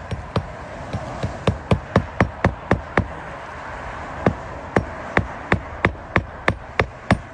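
Hammer driving roofing nails into asphalt shingles during a repair attempt: quick, even strikes, about three to four a second, with a short pause a little before the middle.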